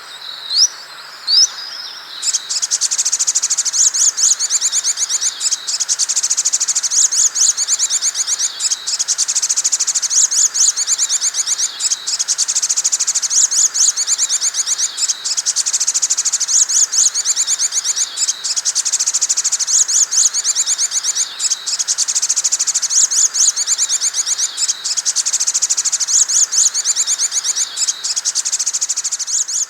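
A spiderhunter (sogok ontong) singing. It opens with two short rising whistles, then gives a fast, high, unbroken chattering trill that pauses briefly about every second and a half.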